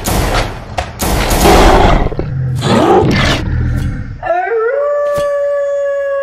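A run of loud bursts and thumps from Nerf blaster fire. About four seconds in, a werewolf howl starts: one long wolf-like call that rises and then holds, with a few sharp clicks over it.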